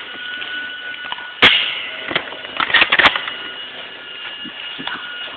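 Airsoft guns firing in a backyard skirmish: one sharp, loud shot about a second and a half in, then a quick cluster of snapping shots around three seconds in.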